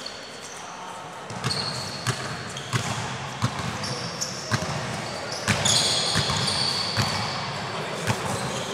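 Futsal ball being kicked and bouncing on an indoor court, a string of sharp thuds, with short high sneaker squeaks on the floor, echoing in a large hall.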